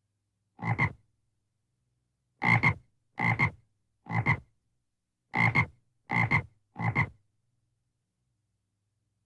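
A frog croaking seven times in an uneven series. Each croak is short and doubled, two quick pulses, with a longer gap after the first croak.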